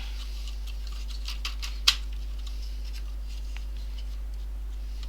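A few small clicks and taps from parts and tools being handled on a workbench, the sharpest about two seconds in, over a steady low electrical hum.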